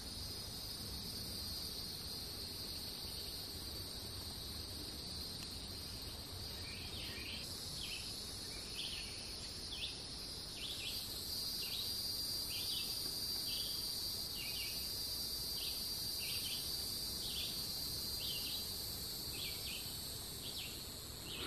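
Woodland insects droning steadily at a high pitch. From about a third of the way in, a short call repeats a little faster than once a second over the drone.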